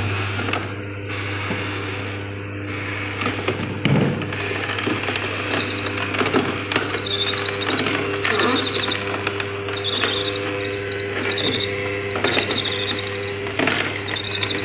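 Vertical slow (masticating) juicer running with a steady motor hum. There is a knock about four seconds in. After that come repeated high squeaks, roughly one a second, as the auger crushes vegetable pieces fed into the chute.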